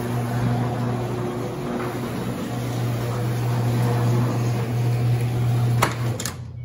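A steady low hum with hiss. Near the end come two sharp clicks as the door handle of a 1976 Corvette Stingray is pulled and its latch opens, and then the hum drops away.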